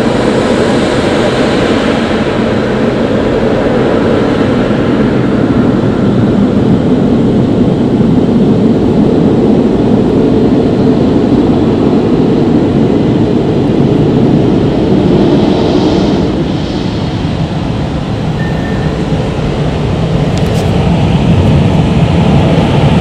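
Aquatus Prime automatic car wash gantry running its air-dryer blowers over the car, heard from inside the cabin as a loud, steady rush. It eases a little about two-thirds of the way through, then builds again near the end as the gantry comes back over.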